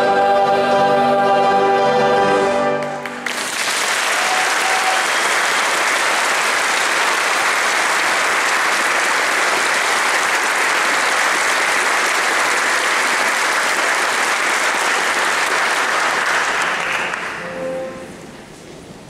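A boys' choir holds a sustained final chord that cuts off about three seconds in, followed by steady audience applause that fades out near the end.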